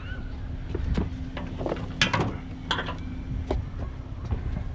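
Scattered knocks and light metallic clinks as a push lawn mower is handled in a pickup truck's bed, over a steady low hum. The sharpest knocks come about two seconds in.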